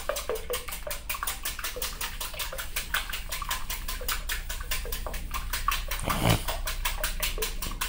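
Wire whisk beating eggs in a glass bowl, a quick even rhythm of about five or six strokes a second, with a louder knock about six seconds in.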